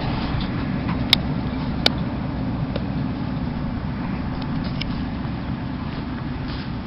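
Farm tractor engine running steadily in the hay field, easing off slightly, with two sharp clicks about a second and two seconds in.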